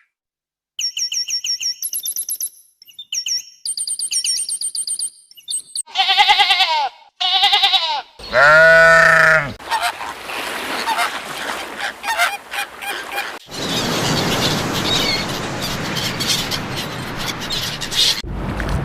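A run of bird calls: fast, repeated high chirping for several seconds, then a few loud, drawn-out honking calls like a goose's. After that comes a steady noisy hiss for the rest of the stretch.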